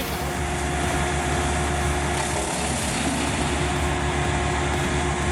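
Wood chipper running steadily under power, its engine and drum making a constant mechanical din with a few steady tones through it.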